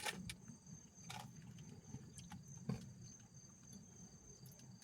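Faint, steady, high-pitched insect trilling, with a few soft scattered clicks and taps; the sharpest click comes a little past halfway.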